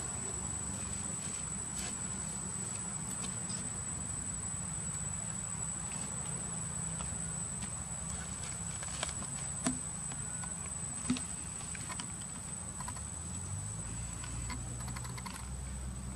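Insects making a steady, high-pitched drone, one unbroken tone, over a low rumble, with a couple of faint clicks about ten seconds in.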